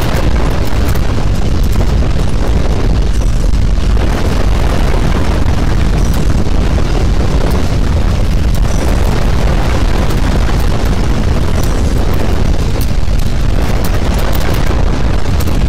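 Loud, steady, deep rumbling noise of earthquake ground shaking, as in a simulated great-quake sound effect, heaviest in the low bass and unbroken throughout.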